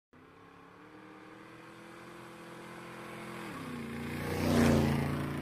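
A motor vehicle passing on the road: a steady engine hum grows louder, drops in pitch about three and a half seconds in, and is loudest near the end before starting to fade.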